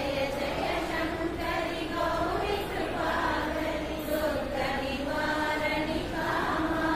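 A group of women's voices chanting together in unison, a steady sing-song devotional recitation.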